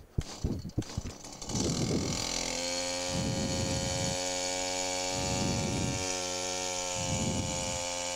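STIHL two-stroke chainsaw being pull-started: a few clicks and rattles of the starter, then the engine catches about a second and a half in and runs at a steady idle, with a rougher low pulse coming back roughly every two seconds.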